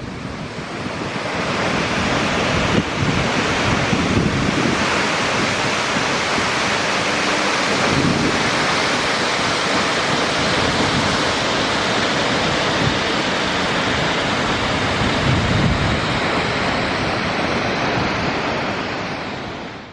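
Victoria Falls on the Zambezi River: a steady roar of falling water that fades out near the end.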